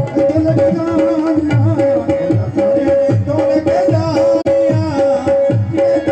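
Live devotional song: a voice singing over a steady beat of hand-drum strokes, with a held note running underneath.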